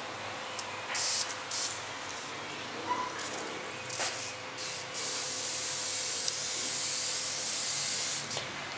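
Handheld mist sprayer on a thin hose, hissing in short bursts and then in one long spray of about three seconds.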